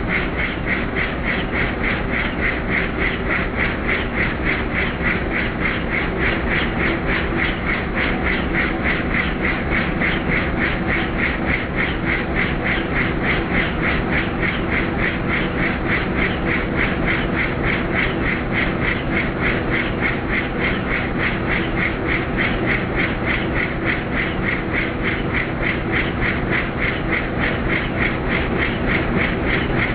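Helicopter in flight, heard from inside the cockpit: the main rotor's steady, rapid chopping over the constant drone of the engine.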